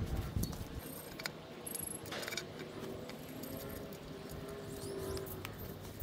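A propane tank and its rubber hose are handled and set down, giving a few faint clicks and knocks over a quiet outdoor background, the clearest knock about two seconds in.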